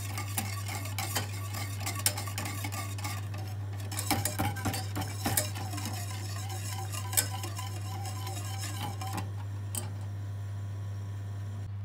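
Wire whisk stirring a thin chocolate sauce in a stainless steel pot on a gas burner, its wires clicking and scraping against the pot in quick, uneven strokes. The strokes thin out near the end. A steady low hum runs underneath.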